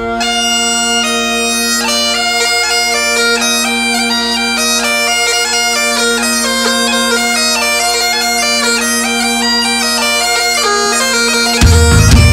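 Bagpipe music soundtrack: a piped melody over steady drones, with drums and bass coming in loudly near the end.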